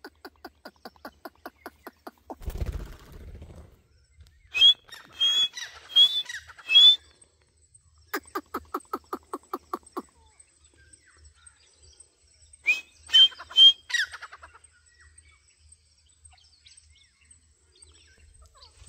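Grey francolins calling: runs of fast, clicking notes build into loud, high, ringing phrases of three or four notes, twice. There is a short low rumble early on.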